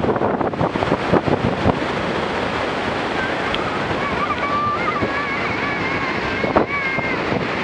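Steady roar of Niagara's Bridal Veil Falls crashing onto the rocks at close range, with wind and spray buffeting the microphone in the first couple of seconds. A high, wavering call rises over the roar from about three to seven seconds in.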